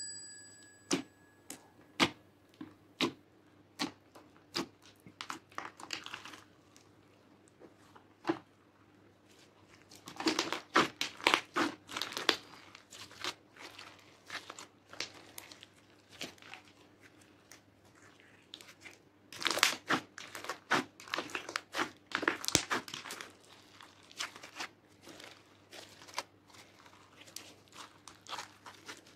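Slime with small beads mixed in being pressed, folded and stretched by hand, making sharp clicks and pops. At first they come singly, about one a second; then come dense runs of crackling, about a third of the way in and again about two thirds of the way in.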